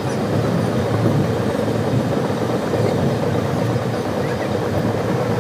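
Gondwana Express passenger train running along the track, heard from on board: a steady, even running noise of wheels and coaches with no single clack or horn standing out.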